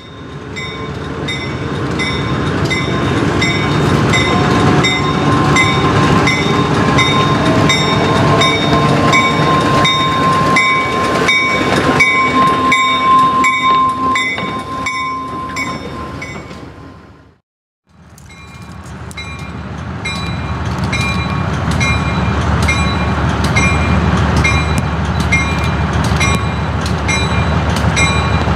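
Small diesel switcher locomotives moving slowly toward the listener, the engine rumbling under a locomotive bell that rings about twice a second. The sound cuts off abruptly a little past halfway and resumes with another switcher approaching, its bell still ringing.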